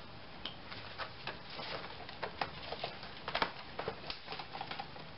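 Irregular clicks, taps and rustling of gloved hands working a plastic and rubber air intake duct loose from the throttle body, with a few sharper clicks about three and a half seconds in.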